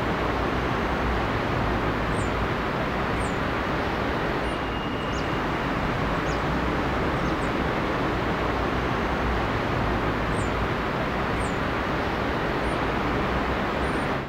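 Steady city traffic noise with faint high chirps now and then. It cuts off abruptly at the end.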